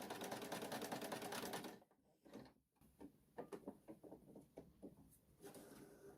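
Elna 120 sewing machine running a straight stitch, a rapid, even clatter for just under two seconds before it stops. Scattered light clicks and taps follow.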